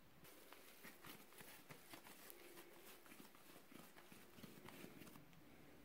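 Faint soft taps and rustles of hands pressing and shaping balls of pizza dough on a floured wooden tabletop, stopping about five seconds in.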